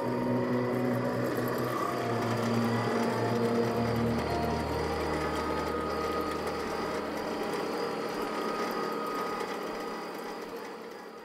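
Background music score: held tones over a fast, rattling, machine-like pulse, with a low drone entering in the middle, fading out near the end.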